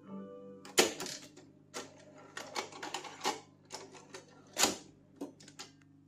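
A run of sharp mechanical clicks and clunks from an Akai GXC-60D cassette deck's tape transport, the loudest about a second in and again past the middle of the run, over faint music from the tape.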